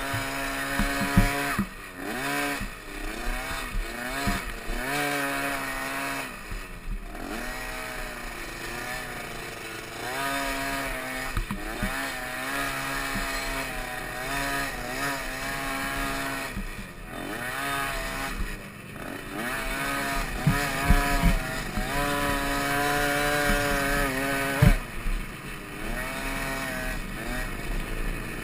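Small dirt bike engine revving up and down over and over as the rider works the throttle around the track, with a few sharp knocks.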